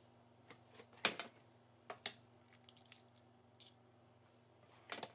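A raw egg's shell cracking and breaking open over a nonstick frying pan. There is one sharp crack about a second in, a couple of smaller clicks about a second later as the shell comes apart, and another click near the end.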